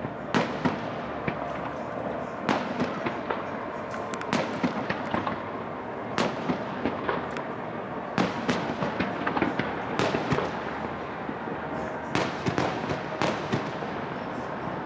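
Aerial fireworks shells bursting in quick, irregular succession, sharp bangs about one or two a second, over a steady background of noise.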